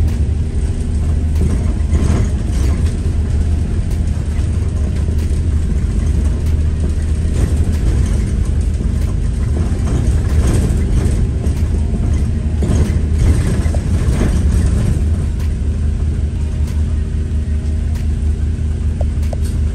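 Inside a moving London bus: the engine's steady low drone, with frequent clicks and rattles from the body and fittings.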